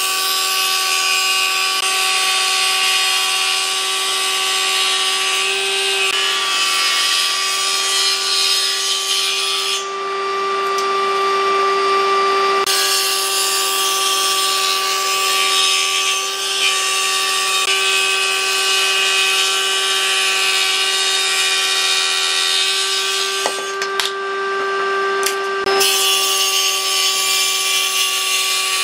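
Table saw on a combination woodworking machine ripping a thick timber block lengthwise: a steady whine from the motor and spinning blade under the rasping of the cut. Twice, about a third of the way in and again near the end, the cutting noise drops away for a second or two and only the whine of the freely spinning blade is left.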